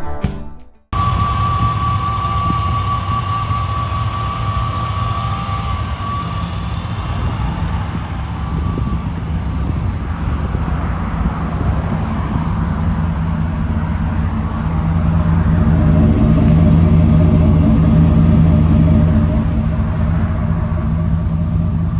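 1991 GMC SLE 1500 pickup's fuel-injected engine idling steadily, with a thin whine that fades out over the first few seconds. The exhaust note grows louder for a few seconds past the middle.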